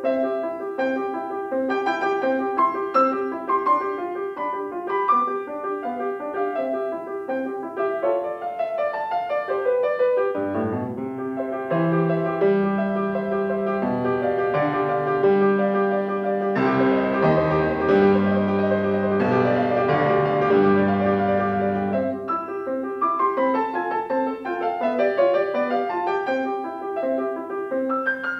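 Grand piano played solo: a classical piece with a quick repeated middle note under a running upper line. From about ten seconds in it turns fuller, with low bass notes held under it, then goes back to the lighter texture near twenty-two seconds.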